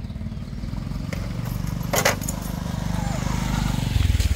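Small motorcycle engine running close by, growing steadily louder, with one brief sharp rattle about two seconds in.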